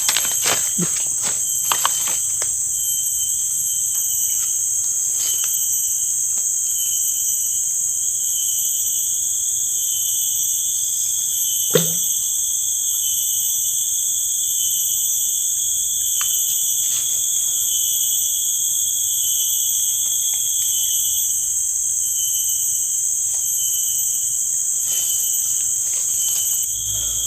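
Steady chorus of insects, crickets or similar, shrilling on several high pitches at once, the highest one pulsing evenly. A few light clicks come near the start, and a single sharper knock comes about twelve seconds in.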